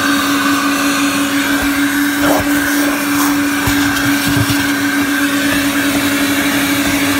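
Carpet extractor running steadily while spraying enzyme solution onto a flooded car's carpet: its vacuum motor gives a constant hum with a higher whine over a rushing hiss.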